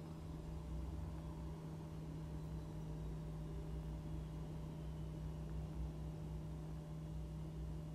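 Steady low hum with a faint rumble beneath it, even throughout, with no distinct knocks or clinks.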